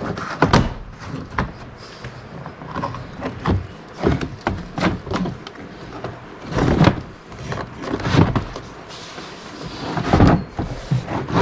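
Rubber floor mat of a Club Car Precedent golf cart being peeled up and dragged out by hand: irregular scraping and rubbing of rubber against the floor and plastic trim, with a few louder knocks and thumps.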